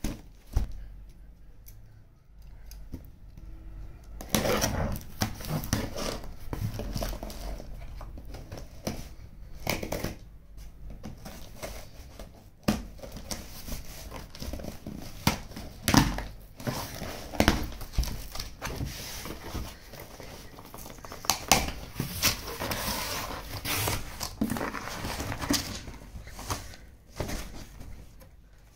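A cardboard shipping box being opened by hand: packing tape peeled and torn from the seam, with crinkling and the cardboard flaps scraping and knocking. Apart from a knock at the very start it is fairly quiet until about four seconds in.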